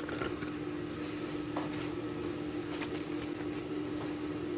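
Steady low hum under a faint hiss, with a couple of faint light ticks.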